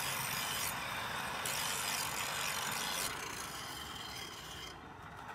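Steel knife blade being ground on a belt-driven grinding wheel, a steady grinding hiss that drops away about three seconds in, leaving quieter background noise.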